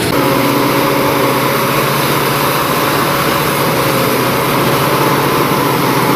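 Rice combine harvester running steadily while it cuts and threshes rice, its engine and threshing machinery making a loud, even drone.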